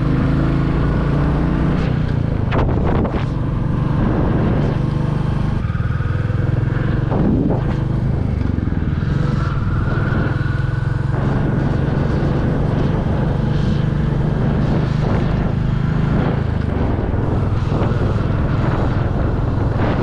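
Motorcycle engine running steadily while riding, with a fairly even pitch.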